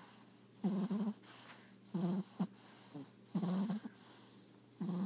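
French bulldog snoring in its sleep: four short buzzy snores at an even pace, about a second and a half apart, each about half a second long, with softer breaths between them.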